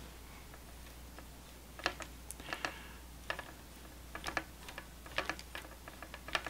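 Horror Reacher grabbing puppet being worked by hand: its grabber arm's mechanism gives light, irregular clicks, a few a second, starting about two seconds in as the arm reaches out.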